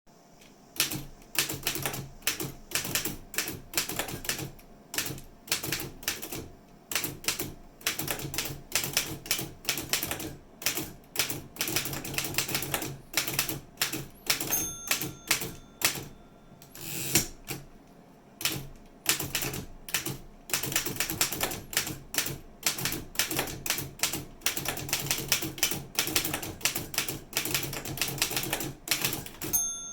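1902 Smith Premier No. 4 typewriter being typed on: rapid runs of key and typebar strikes at several a second, with a couple of short pauses. The carriage bell gives a short ring about halfway through and again near the end.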